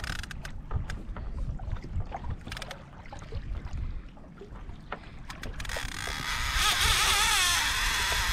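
Fishing reel drag on a Shimano Talica 16 whining as a big fish takes line. It starts about five and a half seconds in with a wavering pitch, after scattered clicks over wind and water noise on the microphone.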